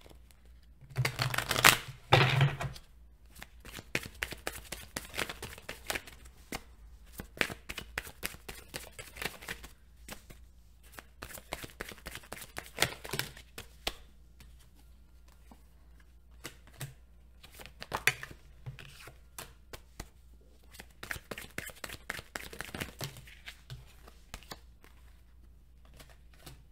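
A tarot deck being shuffled by hand: quick card flicks and snaps in uneven spurts, with a louder burst about a second in, and cards being laid down on the table near the end.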